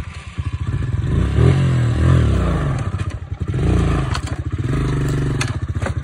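Honda CRF125 dirt bike's single-cylinder four-stroke engine revving up and down in repeated throttle bursts as the bike climbs over rocks, with a few sharp knocks of the bike on stone.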